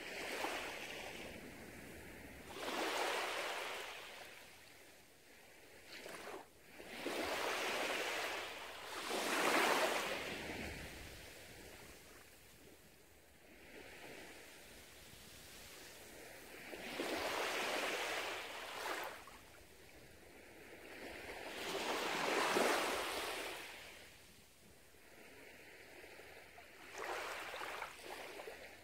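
Small, gentle waves washing up onto a sandy beach and drawing back. The surf rises and falls in soft surges a few seconds apart.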